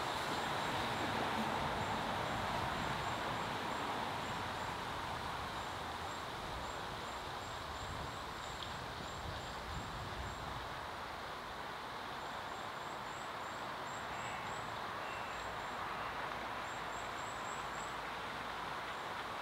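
Steady outdoor background rush with a small bird's high, thin chirps repeated about three times a second in runs of a few seconds, broken by short pauses.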